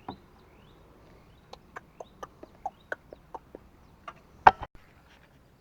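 A run of short clucking calls, about two or three a second, then one louder sharp call or knock about four and a half seconds in.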